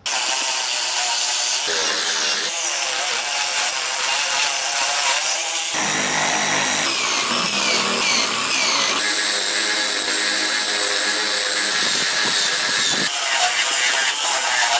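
A power tool running on wood, a steady loud whir and grind whose pitch shifts abruptly several times.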